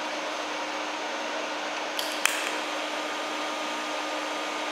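TIG welder in use on sheet metal: a steady hiss with a faint hum, and two short clicks about two seconds in.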